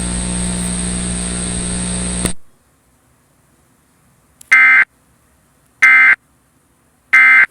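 A steady hum and hiss cuts off suddenly about two seconds in. After a pause come three short, loud bursts of Emergency Alert System digital data tones, each under half a second and about 1.3 seconds apart. These are the end-of-message bursts that close an EAS test.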